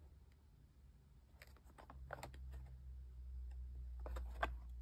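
Small cardboard ink cartridge box being turned over in the hands: light taps and scuffs of fingers on the cardboard, in small clusters about a second and a half in, two seconds in and near the end, over a low steady hum.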